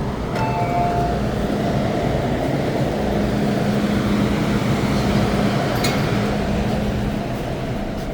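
MTR M-Train electric multiple unit: the door-closing chime's alternating two-tone beeps end about a second in, then the train pulls away. Its running noise swells and holds steady over a steady motor hum, with a brief click near six seconds.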